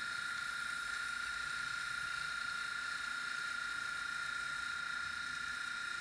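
Sound decoder of a Fleischmann N gauge class 193 model locomotive playing its air-compressor sound through the model's small speaker: a steady hiss with a constant high tone.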